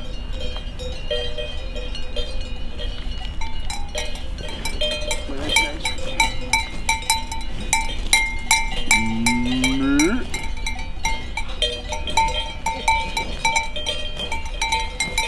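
Several cowbells on grazing cows clanking and ringing irregularly. About nine seconds in comes one rising call lasting about a second.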